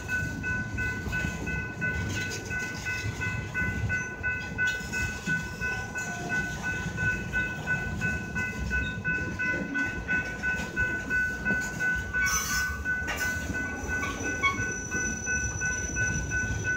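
Freight train of hopper cars rolling past, its wheels making a steady, uneven rumble, with a steady high-pitched tone running over it.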